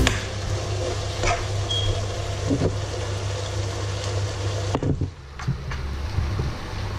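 Escabeche sauce with onion and pepper strips simmering in a frying pan: a soft, steady bubbling hiss over a constant low hum, with a few faint ticks.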